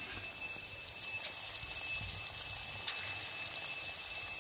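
Lentil-fritter (dal bora) batter sizzling and crackling as it fries in hot oil in a steel kadai. A steady high-pitched tone runs in the background.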